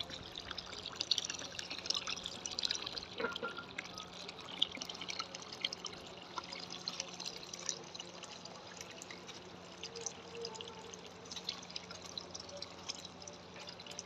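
Water from a stone fountain's spout falling in a steady stream into a stone basin of water and pebbles, splashing and trickling continuously, with a faint steady low hum underneath.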